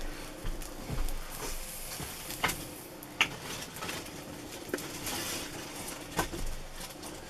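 A few scattered sharp clicks and knocks, about five spread over several seconds, over a faint steady hum.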